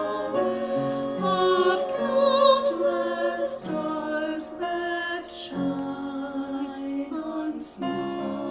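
Voices singing a slow Christmas song in harmony, holding notes with vibrato, with a few sung 's' sounds cutting through.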